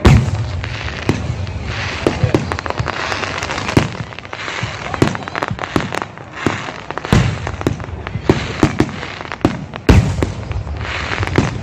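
Aerial fireworks bursting in a rapid series of bangs over continuous crackling. The heaviest booms come right at the start, about seven seconds in and about ten seconds in.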